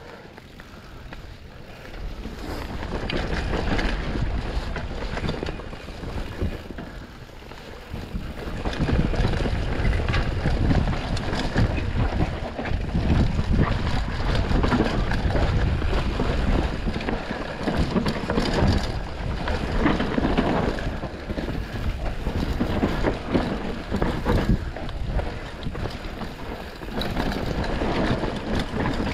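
Mountain bike riding down a dirt singletrack: tyres rumbling over dirt and roots and the bike rattling, under wind buffeting the microphone. It gets louder and rougher from about eight seconds in.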